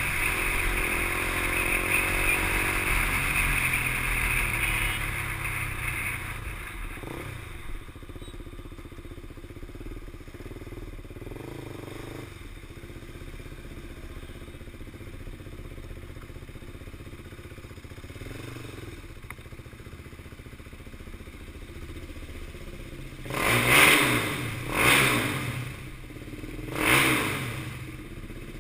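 KTM 390 Duke's single-cylinder engine running with wind rush as the bike rides, the engine note falling as it slows over the first few seconds. Then the engine runs much more quietly at low speed, and three short, loud bursts come near the end.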